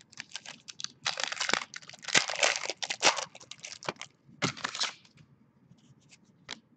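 Foil trading-card pack wrapper being torn open and crinkled, in three bursts of crackling between about one and five seconds in, with scattered light clicks and taps from handling the cards.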